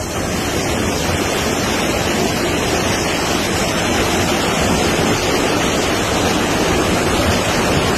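Muddy flash-flood water rushing down a street in a fast torrent, a loud, steady rush of water that sweeps cars along.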